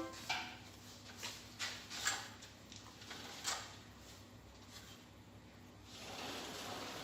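A few light clicks and knocks spread over the first few seconds, then a soft hiss swelling near the end.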